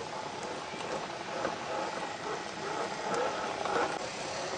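Axial SCX10 II scale RC crawler's electric motor and drivetrain gears whining as it crawls over rocks, the whine rising and falling with the throttle, with a few scattered clicks.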